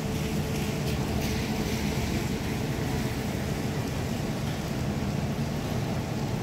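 Large coach's diesel engine idling with a steady low drone.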